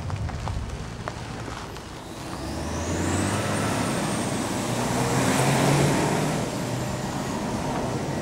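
Jet airliner flying past low: a broad engine rush with a high turbine whine, swelling to a peak about five or six seconds in and then easing off.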